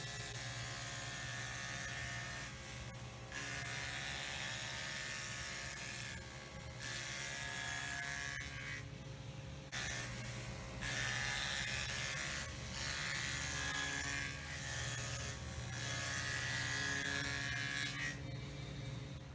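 Table saw with a dado head cutting a 3/8-inch rabbet into the edges of MDF door panels. A steady motor hum runs throughout, and the cutting noise comes in stretches of two to three seconds with short breaks between passes.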